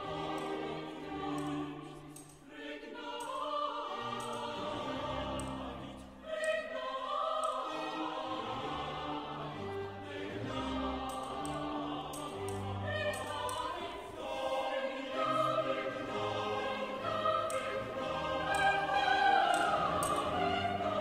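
Background music: classical choral singing with orchestral accompaniment, voices holding long notes in slow phrases.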